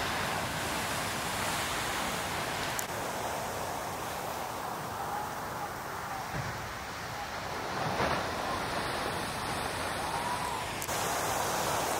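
Heavy surf breaking and whitewater washing in: a steady, even noise of crashing waves, shifting abruptly about three seconds in and again near the end.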